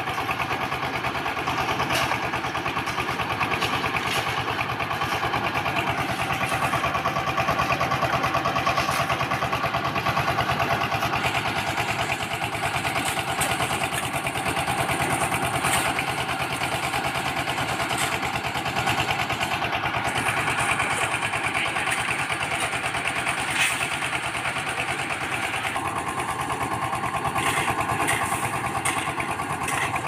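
Portable concrete mixer's small single-cylinder engine running steadily at a constant speed, with a rapid even pulse.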